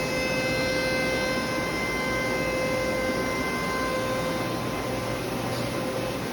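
Brother Speedio R450X1 CNC vertical machining center running, a steady whine with several overtones over a background hiss, the whine easing slightly near the end.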